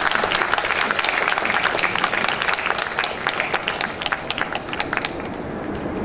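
A crowd applauding, with voices mixed in, starting suddenly; the clapping thins out about five seconds in.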